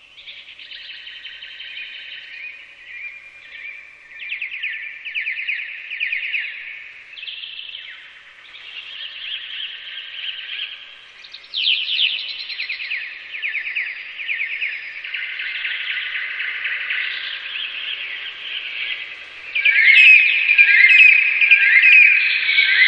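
Recorded birdsong played slowed down: many birds' quick chirps and trills overlapping, growing louder near the end.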